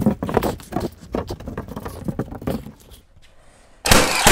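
A plywood/OSB sheathing panel being shifted and scraped into place against wall framing, rubbing and knocking irregularly. Near the end there is a sudden loud, harsh burst of noise.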